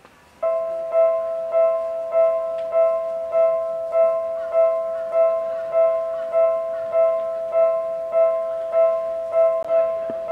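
Japanese railway level-crossing warning bell ringing, an electronic clang repeating evenly about one and a half times a second. It starts suddenly about half a second in, the crossing signalling a train.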